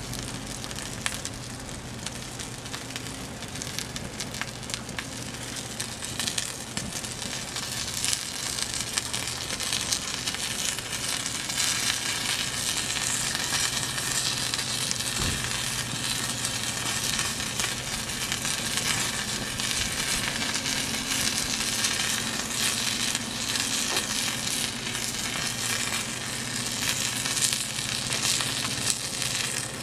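Small fire of wood and foil-lined beverage cartons burning in a metal fire pit: dense crackling and hissing with many small pops, a little louder from about eight seconds in.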